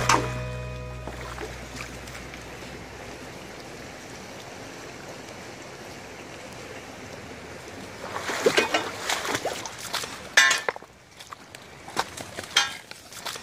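Steady rush of a shallow stream flowing over rocks. About eight seconds in, irregular crunching footsteps on loose river stones start, with stones clinking against one another.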